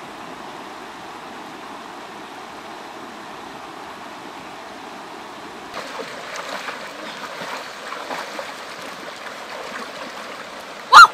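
Steady running-water sound, like a stream. About halfway in, light sloshing and small splashes join it as a person wades through shallow water. A sudden loud burst comes right at the end.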